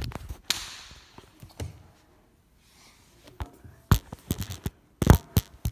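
Handling noise of a phone being moved and set down: a rustle, then a run of sharp knocks and clicks, the loudest a few near the end.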